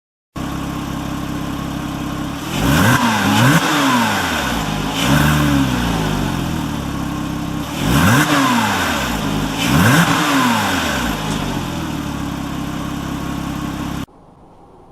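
Porsche 3.8-litre flat-six engine through an aftermarket Cargraphic exhaust, idling steadily and revved in several short blips, each rising and falling in pitch. It starts and cuts off suddenly.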